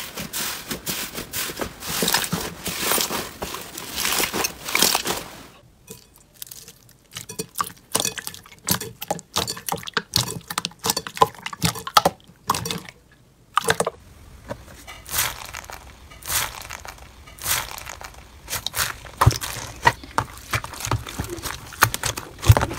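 Hands pressing and squishing slime, a dense run of crackling and sticky popping at first, then separate sharp pops and clicks. Near the end it is a bead-filled crunchy slime being pressed.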